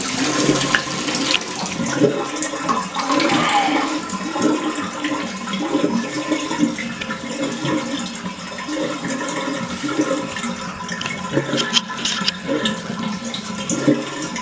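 A toilet flushing, water rushing and gurgling in the bowl, which is slow to go down.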